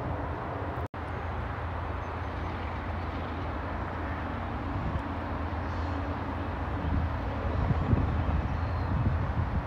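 Steady low rumble of an approaching CSX freight train's diesel locomotives, cutting out for an instant about a second in.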